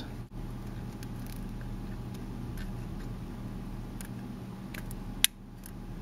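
Faint rustling and small ticks of fingers pressing a thin protective sheet into place on a drive, over a steady low hum. One sharp click comes about five seconds in.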